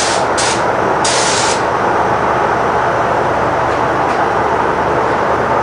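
Gravity-feed paint spray gun hissing in two short bursts in the first second and a half as it sprays colour coat onto a car bumper. A steady, loud rushing of air runs under it throughout.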